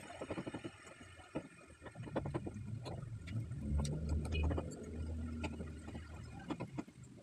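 Scattered light knocks and clicks of a black plastic shelf rack being put together and loaded with items, over a low hum that swells in the middle.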